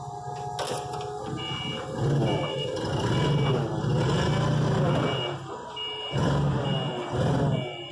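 Caterpillar forklift reversing: its engine revs up and down as it backs away, and its reversing alarm beeps in a steady on-off rhythm from about a second and a half in.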